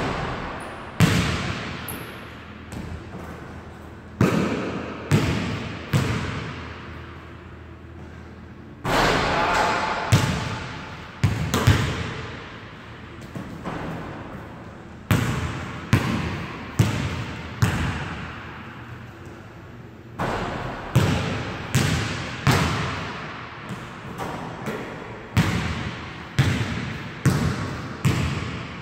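A basketball bouncing on a hardwood gym floor and striking the rim and backboard in irregular bangs, each one echoing in the gym.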